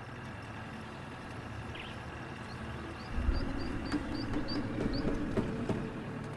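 Outdoor ambience: a bird gives a quick run of short, high, repeated chirps over a steady background. A low rumble swells about three seconds in, with a few sharp clicks.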